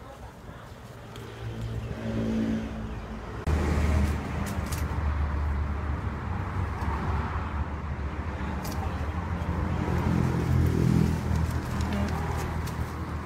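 A motor vehicle engine running with a steady low rumble. The sound shifts abruptly about three and a half seconds in.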